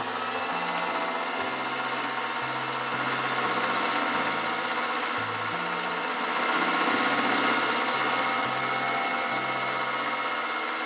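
Mini lathe running, its carbide tool taking an interrupted facing cut on a square aluminium block spinning in a four-jaw chuck. The sound is steady, with a faint rise about halfway through.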